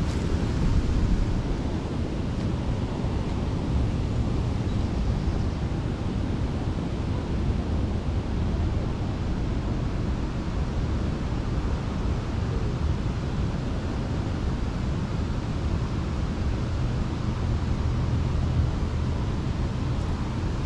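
Wind buffeting the microphone in a steady low rumble, over the rush of a flowing river.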